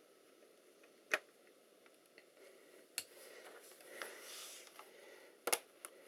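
A Dell Precision M4500 laptop being handled and turned over: a sharp click about a second in, soft shuffling of the case in the middle, and two quick knocks of the plastic case near the end.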